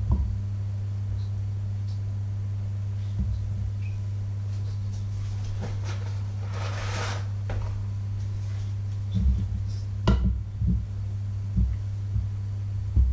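Fish fingers being laid into a steel frying pan on an electric hob, over a steady low electrical hum. A short hiss about seven seconds in, and several low knocks of handling near the end.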